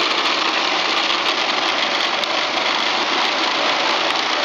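Homemade gyro reaction drive model running: its cord-powered, motor-driven spinning wheels give a steady, loud mechanical whir.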